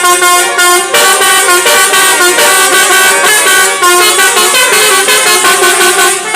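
Basuri 'telolet' multi-tone musical horns blaring loud, overlapping tunes, several notes sounding at once and switching every fraction of a second, in a horn battle between vehicles.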